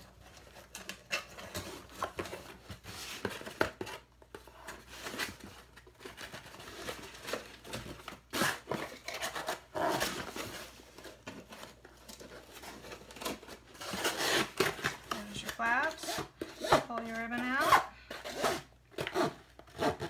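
Ribbon being pulled through holes in a cardboard box while the box and its flaps are handled: irregular rustling, scraping and light knocks of cardboard, busier near the end. Near the end a short pitched sound dips and rises.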